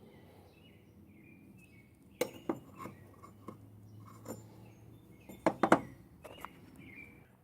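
Metal hand tools clinking and knocking as they are handled and set down on a workbench: a scattered handful of sharp clinks, the loudest a quick pair about five and a half seconds in.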